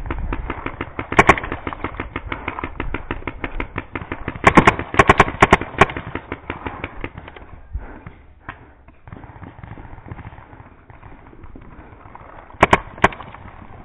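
Paintball markers firing in rapid strings of shots, about ten a second, for the first seven seconds or so, then thinning to scattered shots. A few sharper, louder cracks stand out, about a second in, around four and a half to five and a half seconds, and twice near the end.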